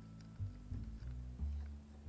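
Background instrumental music: low held notes that change every half second or so.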